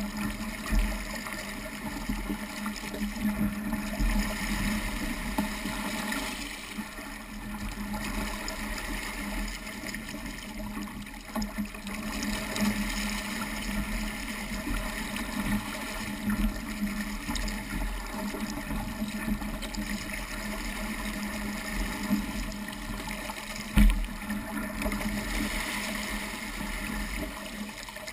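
Water rushing and splashing along the hull of a small sailing dinghy driving through choppy water, with a low uneven rumble. A single sharp knock comes a few seconds before the end.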